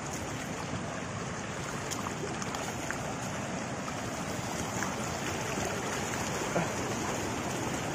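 Small rain-swollen stream flowing fast over rocks: a steady rush of water.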